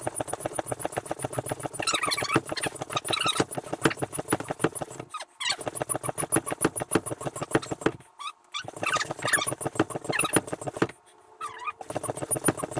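Single-stage hand pump inflating an inflatable paddle board, played sped up: a fast, even run of pump strokes with squeaks, breaking off briefly three times.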